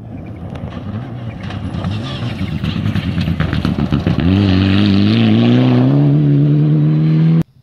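Mitsubishi Lancer Evolution rally car approaching at speed on a gravel stage, engine and gravel noise growing louder, with small clicks of flung stones as it slides past. From about four seconds in the engine pulls hard at full throttle, its note climbing slowly as the car drives away, and the sound cuts off suddenly near the end.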